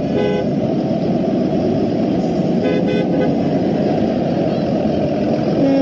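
A line of school buses driving past on a wet street: steady engine and tyre noise, broken by a few short horn toots near the start, about three seconds in and at the very end.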